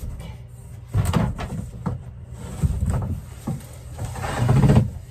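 A thin sheet of beadboard paneling being handled overhead and taken down, flexing and bumping: several sharp knocks and rattles, then a longer, louder scraping rustle near the end as the sheet comes down.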